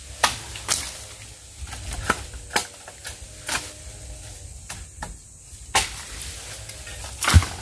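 Dry twigs and brush cracking and rustling as a person pushes through a thicket: irregular sharp snaps about one or two a second, with one louder crack near the end.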